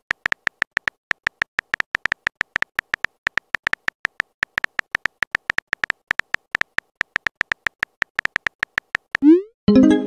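Simulated phone keyboard typing clicks from a texting-story app, rapid and regular at about five a second. Near the end comes a quick rising swoop followed by a short pitched tone.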